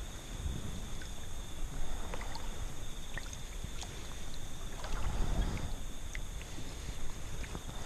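Kayak paddle strokes in a stream, water splashing and trickling with small drips and clicks, the louder swells coming about two and five seconds in. A faint steady high whine sits underneath.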